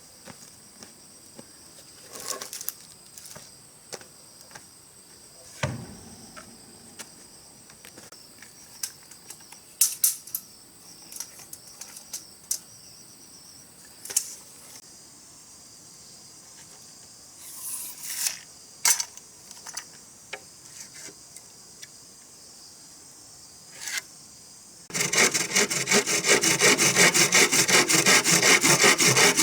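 Insects chirring steadily, with scattered sharp knocks and taps of wood. Near the end a hand saw starts cutting wood in quick, even strokes, much the loudest sound.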